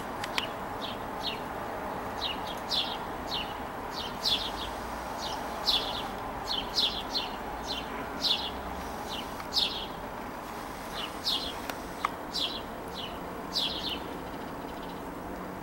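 A bird calling over and over: short, high notes that slide down in pitch, about two a second and often in pairs.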